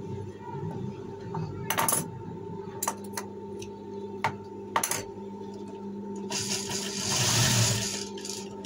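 Industrial sewing machine's motor humming steadily, with several sharp metallic clicks as the fabric and machine parts are handled. Near the end there is a louder rustling swell.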